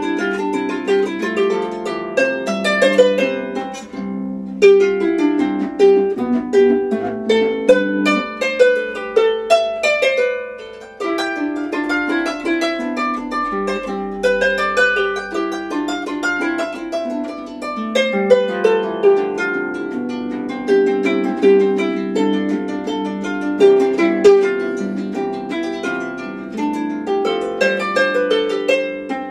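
Romantic pedal harp built in Paris by Pierre Challiot around 1820, recently restored, being played. Plucked notes ring on in flowing arpeggios and falling runs, with short breaks between phrases about four and eleven seconds in.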